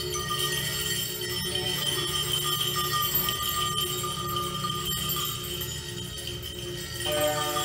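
Experimental ambient music: layered, sustained metallic ringing tones from struck metal bowls, held over a steady low drone. About seven seconds in, a new cluster of tones enters.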